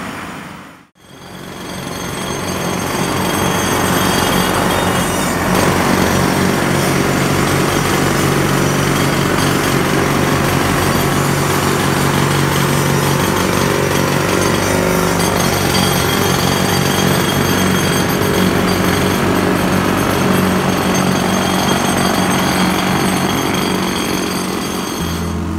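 Pneumatic jackhammers hammering continuously, breaking up concrete. After a brief cut about a second in, the hammering runs steadily until it drops just before the end.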